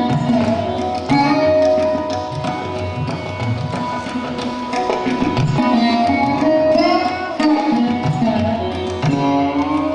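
Sarod and tabla playing Hindustani classical music together: the sarod's plucked notes slide from pitch to pitch over a running tabla rhythm.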